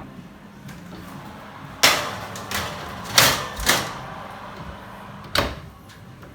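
Several sharp knocks and clatters from things being handled in a kitchen: five hits over about four seconds, the loudest about two seconds in and just after three seconds in.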